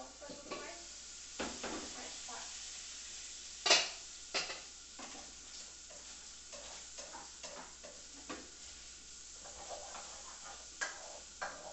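Sliced calabresa sausage and bacon sizzling in a frying pan while being stirred, with a utensil repeatedly scraping and knocking against the pan; the sharpest knock comes nearly four seconds in.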